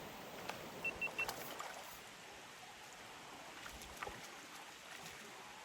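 River water running steadily with a soft rushing noise. A few light clicks and three short high peeps come in the first second and a half.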